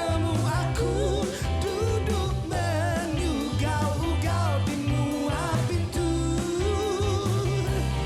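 A live band playing a pop song, with a singer's voice wavering over bass and a steady drum beat.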